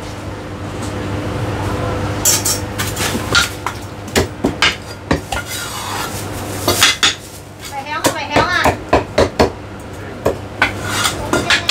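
A cleaver chopping roast meat on a wooden chopping block, with irregular knocks and metal-on-wood clatter, some in quick clusters. A steady low hum runs underneath.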